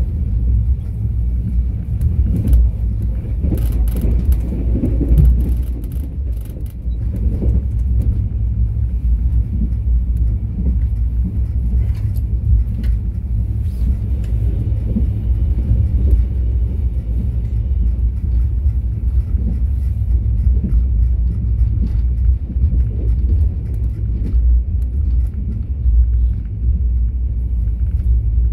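Mugunghwa-ho passenger train running along the track: a steady low rumble of wheels on rails, with occasional short knocks.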